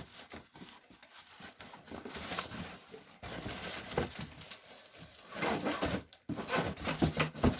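Cardboard box and packing material being handled: irregular rustling, crinkling and scraping with scattered light knocks, louder in the last couple of seconds.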